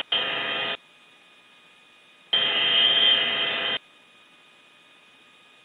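Two bursts of buzzy radio static as the radio channel is keyed open with no voice. The first runs about three-quarters of a second at the start; the second, about a second and a half long, comes a little past the middle. Each cuts in and out sharply, over a faint steady hiss with a thin whine.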